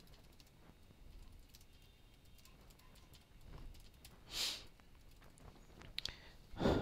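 Quiet computer keyboard typing, a few light key clicks, then a short breath or sniff about four seconds in. A brief loud vocal sound from the typist comes near the end.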